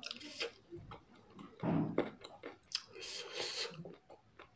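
Mouth sounds of a person eating spicy instant noodles and chicken: irregular chewing, with a louder burst just before two seconds in and a longer hissing mouth sound about three seconds in.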